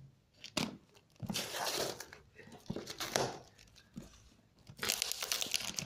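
Scissors cutting and tearing clear plastic packing tape on a cardboard parcel, with crinkling tape and rustling cardboard in irregular bursts, louder near the end.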